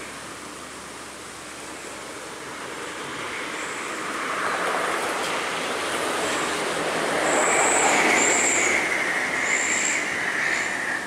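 A vehicle passing close by, its noise swelling to a peak about eight seconds in and then easing, with a high, drawn-out brake squeal through the last few seconds.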